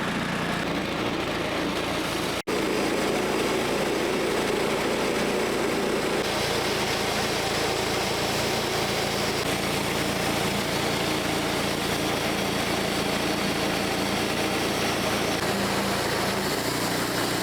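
Portable sawmill's small gas engine running steadily while milling a fire-burnt spruce log. The sound breaks off for an instant about two seconds in and gets brighter and hissier from about six seconds in.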